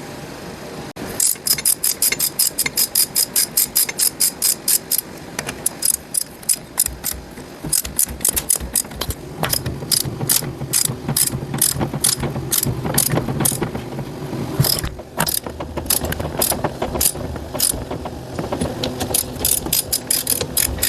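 Hand ratchet wrench clicking in quick runs, about three to four clicks a second, as steel bolts are tightened into the transmission's aluminum housing.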